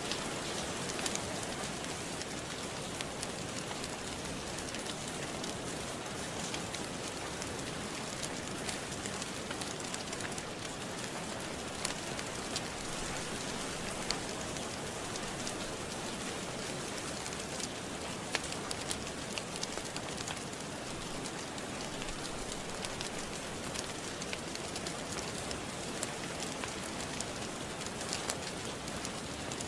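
Steady rain, with scattered sharp crackles and pops of a wood fire in a fireplace.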